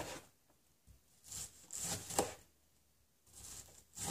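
Kitchen knife chopping an onion on a plastic cutting board: a few separate knocks of the blade through the onion onto the board, about two seconds apart, with softer scraping between them.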